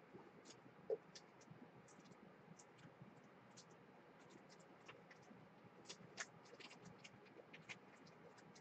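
Faint scratching and light clicks of plastic being handled: a card being worked into a tight-fitting graded card sleeve bag.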